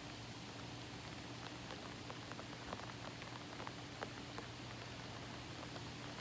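Steady rain falling, with many individual drops ticking on nearby surfaces at irregular moments. A faint, steady low hum runs underneath.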